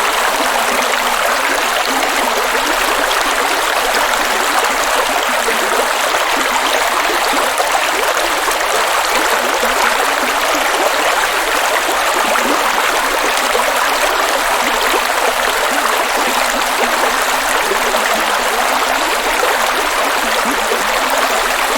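Steady rush of water pouring down Dudhsagar Falls, an even, unbroken wash of sound.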